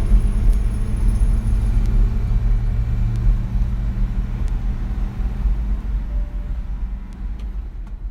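1969 Nissan Cedric 130 wagon's L20A straight-six engine running steadily with a low rumble that slowly fades away near the end.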